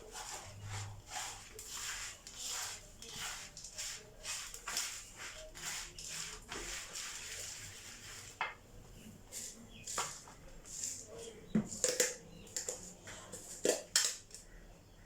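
A spoon scraping and knocking against a container, in quick repeated strokes for about the first half, then scattered sharper clicks and taps.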